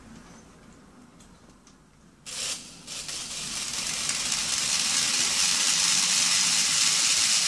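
Small electric R/C helicopter's main rotor spinning up in the hand, a brief burst a little over two seconds in, then an airy hiss of rotor wash and motor that rises and holds steady. The motor runs off USB power banks through a step-up board.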